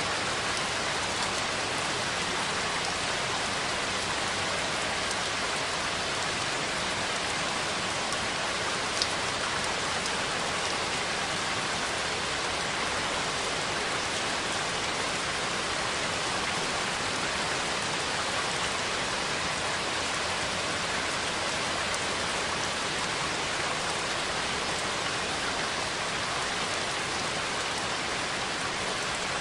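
Steady rainfall, an even hiss of raindrops with a single louder drop or tick about nine seconds in.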